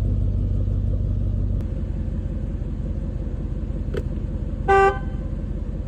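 Mercedes-AMG E55 Kompressor's supercharged V8 running, its note stepping down to a steadier idle about a second and a half in. Near the end a click, then one short, loud blast of the car horn.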